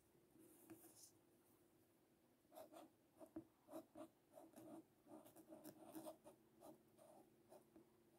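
Pen writing a word in cursive on a paper card: faint, quick scratching strokes that start about two and a half seconds in and keep going.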